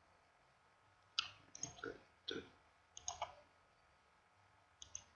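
Computer mouse clicking: about ten short, sharp clicks in irregular bunches over a quiet room background, as geometry is picked in CAD software.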